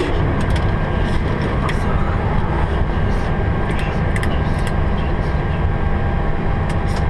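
Steady, loud cockpit noise inside a Boeing 737 on the ground after landing: a dense rumble of the aircraft's engines and air systems, with a few light clicks scattered through it.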